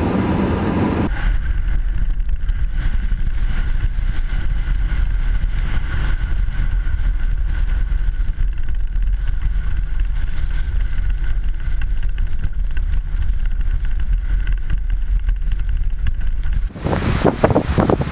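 Blizzard wind buffeting the microphone: a deep, steady rumble. About a second in, and again near the end, the sound changes abruptly; the last part is a louder, gusting hiss of wind.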